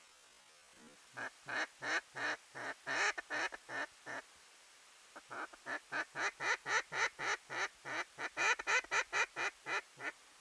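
Duck quacking in two runs of short, quick quacks, about three to four a second: a shorter run in the first half and a longer one of about twenty quacks in the second half.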